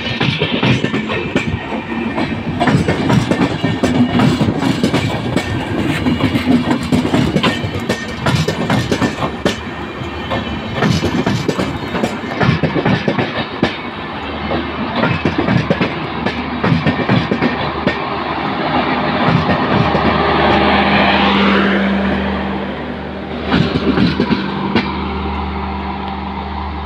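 Indian Railways express passenger train running on the track, its wheels clattering in rapid clacks over rail joints. About halfway through the clacking gives way to a steady low hum, with a whine that rises and falls near the end and a last short run of clacks.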